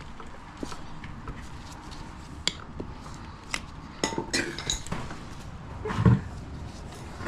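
Steel spanner wrenches, used as tire levers, clinking and scraping against an e-bike's rear wheel rim as a tire is forced back on, with several sharp ringing clinks in the middle and a dull thump about six seconds in.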